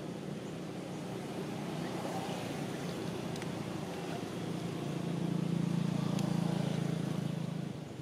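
Engine drone of a motor vehicle, steady, swelling louder about five seconds in and dropping away near the end.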